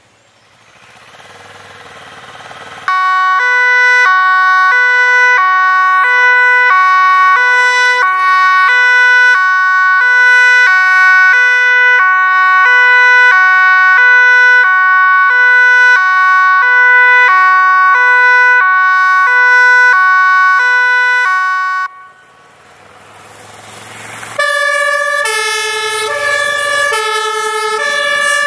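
A fire service Volkswagen van's two-tone siren, switching steadily between a high and a low tone, starts after a few seconds of engine noise and cuts off abruptly about 22 seconds in. An engine then builds, and near the end a MAN fire engine's own two-tone siren starts on a lower pair of tones.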